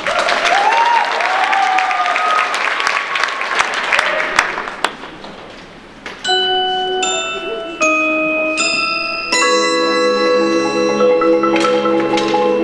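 Crowd cheering and clapping with whoops, dying away over the first five seconds. Then the front ensemble's mallet keyboards (marimbas and vibraphones) play a slow passage of long ringing notes entering one after another, swelling into a fuller, lower chord about halfway through.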